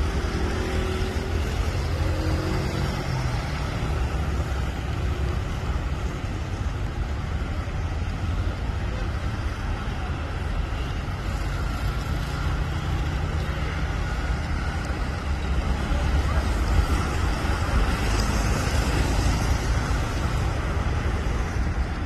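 Road traffic at a roundabout: cars and motorcycles passing steadily, a continuous rumble of engines and tyres. An engine note stands out in the first three seconds, and tyre noise swells as a car passes near the end.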